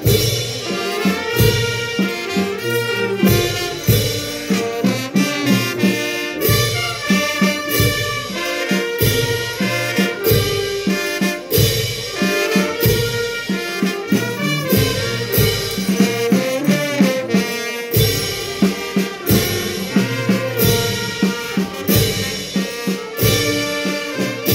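Live brass band playing dance music for the negrería: brass instruments carrying the melody in held notes over a steady bass-drum beat.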